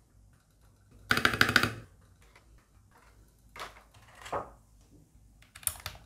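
Plastic keycaps being pressed down onto the Gateron Milky Brown switches of a mechanical keyboard. A quick clatter of clicks comes about a second in, softer knocks follow in the middle, and another short clatter comes near the end.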